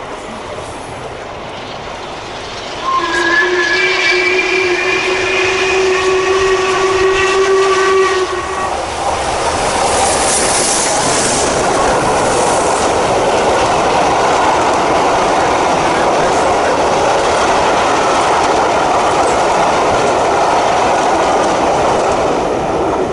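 The whistle of LMS Princess Coronation class steam locomotive 46233 sounds for about six seconds, beginning about three seconds in, as the train comes through. The passing coaches then roll by with a steady rumble and clatter of wheels on rail, with a brief hiss of steam soon after the whistle stops.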